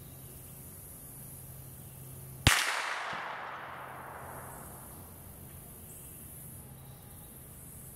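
A single sharp crack from a 7mm-08 rifle shot, heard from the target end of an 800-yard range, about two and a half seconds in, followed by an echo that fades over about two seconds. There is no ringing tone after it, so it is not a clear hit on the steel.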